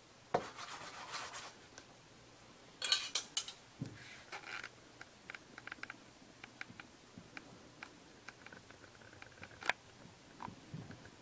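A heated nakwha iron scraping and rubbing across hanji paper as it burns brush-like strokes. There is a louder burst of scratching about three seconds in, then lighter scattered scrapes and ticks.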